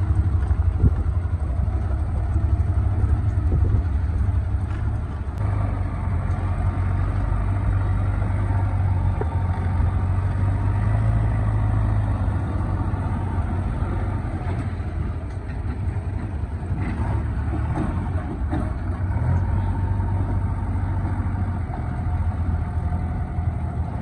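JCB 3DX backhoe loader's diesel engine running steadily as the machine drives along: a continuous low engine drone.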